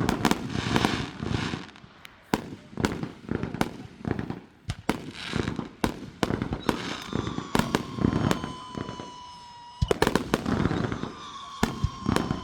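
Fireworks going off: a rapid string of sharp bangs and booming reports. About halfway through, a long whistle sets in that slowly falls in pitch, and it comes again near the end.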